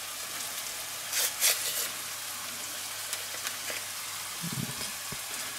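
Chopped bacon and onions sizzling steadily in a frying pan with clarified butter. A couple of short paper rustles come from a baking-powder packet being opened.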